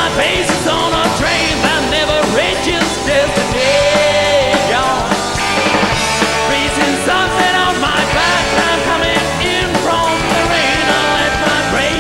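Rock band playing live: electric guitar, bass and drums, loud and continuous, with gliding, bending guitar or vocal lines over the band.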